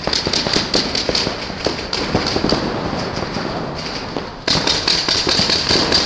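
Paintball markers firing across the field in quick, irregular pops, several shots a second. A louder rush of noise joins about four and a half seconds in.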